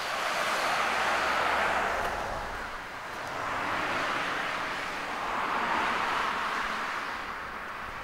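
Cars passing on the road, their tyre and engine noise swelling and fading about three times.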